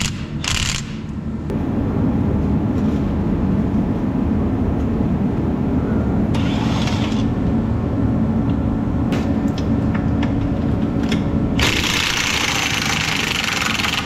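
A steady low machine rumble, like an engine running, with a few sharp clicks and two spells of hissing noise, the longer one near the end.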